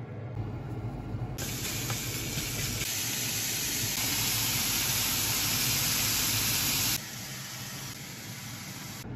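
Minced pork sizzling in a hot non-stick frying pan: a loud, steady hiss that starts abruptly and cuts off sharply a couple of seconds before the end, over a low steady hum.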